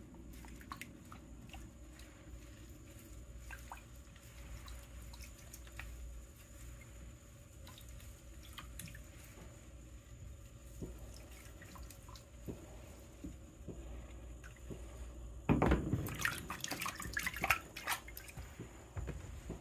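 Faint sloshing and dripping of water in a plastic tub as a hand works a coil of exhaust heat wrap under the surface to soak it, with a run of louder splashing about three-quarters of the way through.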